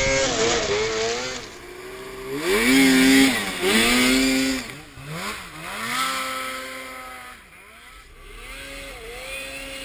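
Snowmobile engine revving up and down several times as the throttle is opened and let off, pitch rising and falling, loudest a few seconds in.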